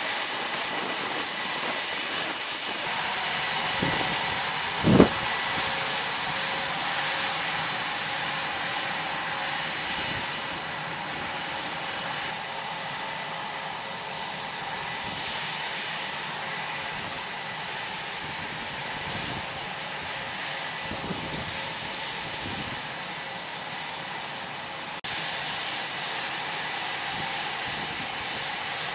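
F/A-18 Super Hornet jet engines running on a carrier flight deck: a steady rushing noise with a high whine over it. A single short thump about five seconds in.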